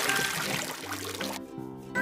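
A splashing-water sound effect, a rush of noise that dies away after about a second and a half, over light background music.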